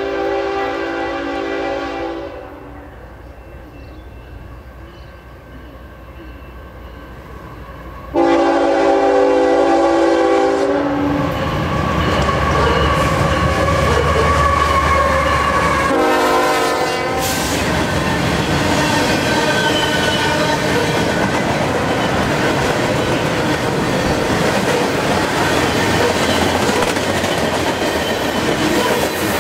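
CN freight train's GE ES44AC diesel locomotive horn sounding two long blasts about six seconds apart, then a short toot about halfway through. Between the blasts the locomotive's engine swells into a loud low rumble as it passes. After it, a long string of freight cars goes by with steady wheel clatter and rumble.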